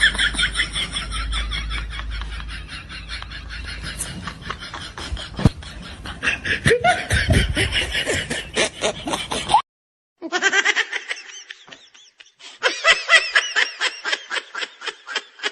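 Hard, high-pitched laughter in long runs of rapid pulses. It breaks off into silence just under ten seconds in, and a second bout of laughter starts half a second later.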